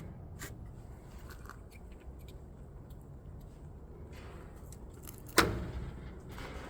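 Footsteps and debris underfoot in a derelict building: scattered light clicks over a low steady background, then a single sharp metallic clank a little over five seconds in that rings briefly.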